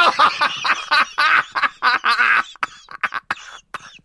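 A person laughing hard: a run of high, wavering laughs that breaks up into short, breathy laughs over the second half.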